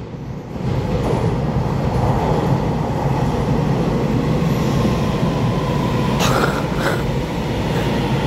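Taiwan Railway EMU3000 intercity electric multiple unit running past close by: a steady rumble of wheels on rail that builds in the first second, with two short clacks about six seconds in.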